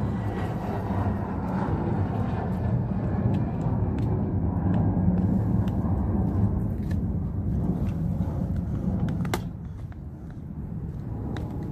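A Blue Bay Shepherd dog gnawing a raw beef rib, with occasional sharp clicks and crunches of teeth on bone. Under it runs a steady low rumble that eases about ten seconds in.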